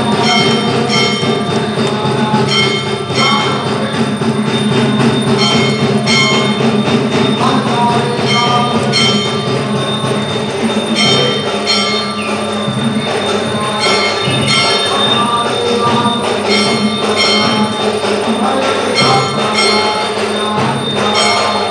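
Metal bells struck over and over in a steady rhythm, each stroke ringing on over a continuous low drone.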